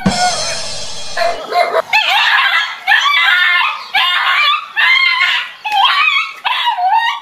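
A dog barking and yelping in repeated high-pitched bursts, about one a second, as it attacks a stuffed toy tiger. About the first second is a scuffling, rustling noise.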